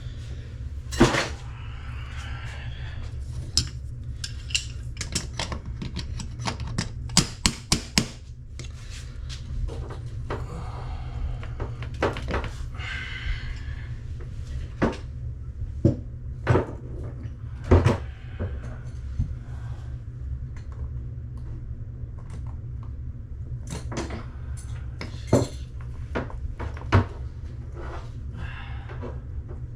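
Irregular metallic clinks and knocks of hand tools against the faucet's fittings under a sink, with a few short scrapes, while the rusted mounting nuts are being worked loose.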